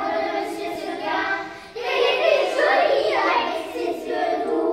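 A group of young children, about eight years old, singing a song together, with a short break between phrases a little under two seconds in.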